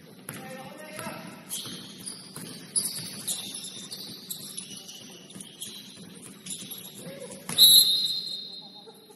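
Basketball game sounds: sneakers squeaking on the court, scattered sharp knocks, and players calling out. About three-quarters of the way through comes a loud sharp hit, followed by a high ringing tone that fades over a second or so.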